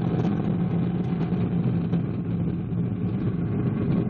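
Rocket engines during a launch: a steady, even rumble with a low hum running underneath.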